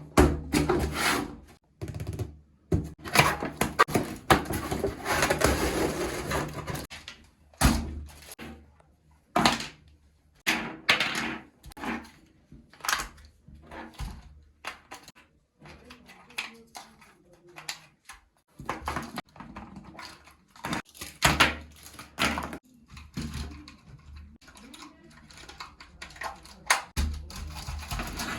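Handling noise from unboxing a remote-control toy jeep: irregular knocks, taps and clicks of the plastic toy and its box, with a longer stretch of rustling a few seconds in.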